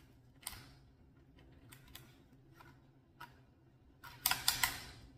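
Cutlery clicking against a plate of food during eating: a few separate light taps, then a short, louder clatter of several clicks near the end.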